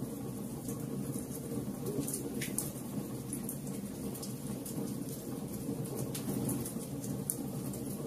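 Wood fire burning in a fireplace: a steady low rumble of flames with irregular sharp crackles and pops from the burning logs.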